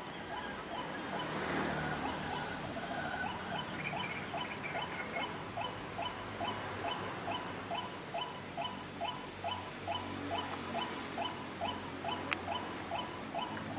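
White-breasted waterhen calls: a long series of short, evenly repeated notes, about two a second, starting about a second in. A single sharp click sounds about twelve seconds in.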